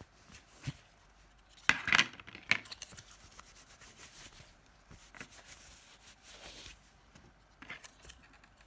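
Hands rubbing and wiping plastic phone housing parts while cleaning them with a plastics-cleaning liquid. A cluster of sharp scrapes and clicks comes about two seconds in, and a few quieter ones follow later.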